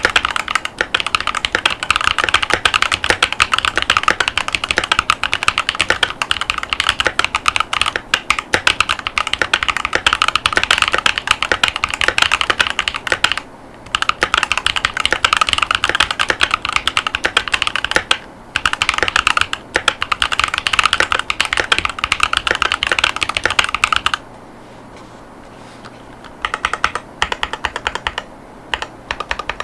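Fast continuous typing on a Keychron V1 mechanical keyboard with Gateron Baby Kangaroo tactile switches and ABS OEM-profile keycaps, a dense stream of key clacks. Typing pauses briefly twice, then stops for a couple of seconds about two-thirds through before resuming in shorter runs.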